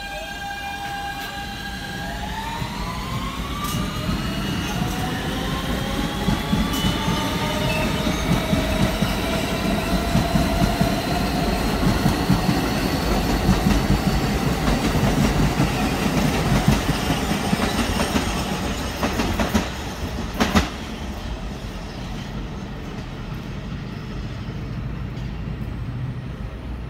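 R160B subway train with Siemens propulsion pulling out: the traction motors sing several steady tones, then from about two seconds in the tones climb in pitch as the train accelerates, over rumbling wheels and clattering rail joints. A few sharp knocks come near the twenty-second mark, then the sound fades as the train leaves.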